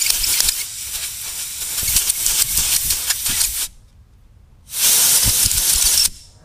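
Compressed-air blow gun hissing in a long blast that cuts off about three and a half seconds in, then a second blast of about a second and a half.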